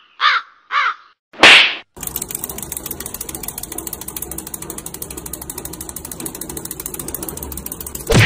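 Three short high calls, then a brief loud whoosh, then a steady fast mechanical clicking rattle from a small toy chick's mechanism, lasting about six seconds.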